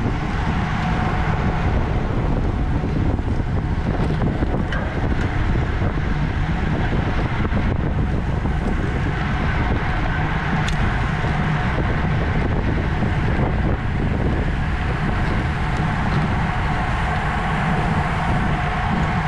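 Steady wind rushing over the microphone of a camera riding along on a road bike at race speed, with road noise from the bike underneath.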